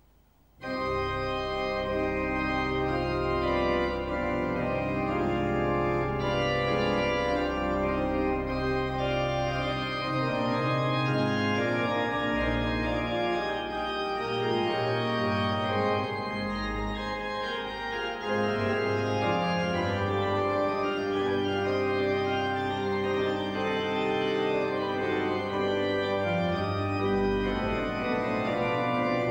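Organ music: held chords over a low pedal bass line, starting abruptly just under a second in.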